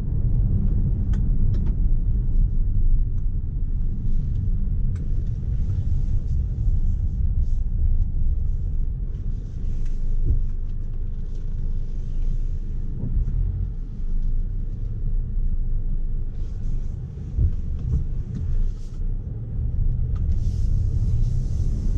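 Mercedes GLC 250 d's four-cylinder diesel and tyres heard from inside the cabin: a steady low rumble while driving slowly on a rough road, with a few light clicks early on and patches of hiss that come and go, the loudest near the end.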